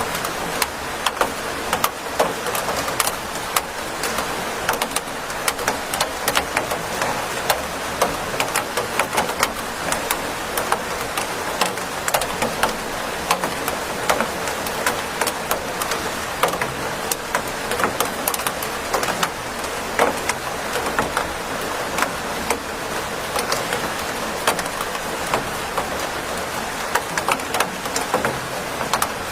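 Steady rain falling, with many close drops ticking and pattering sharply on a hard surface.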